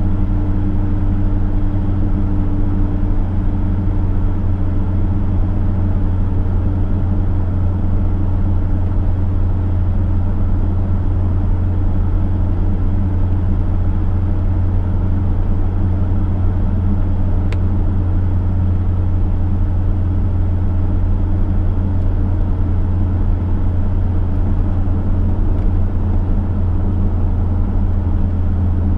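Chevrolet V8 car cruising at a steady speed: a constant low engine drone mixed with road noise, holding the same pitch and level throughout.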